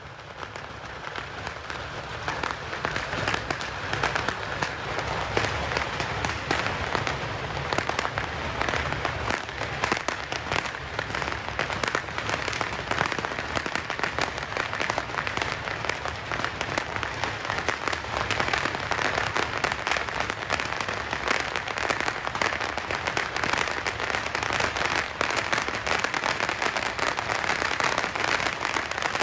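Beehive fireworks firing en masse: a dense, unbroken crackle of countless small rockets and bangs. It builds up over the first couple of seconds and then holds loud and steady.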